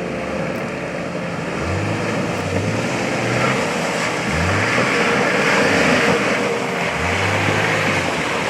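Locked four-wheel drive on 35-inch tyres revving hard in a deep mud hole, the engine note rising and falling several times as the wheels spin and scrabble through the mud.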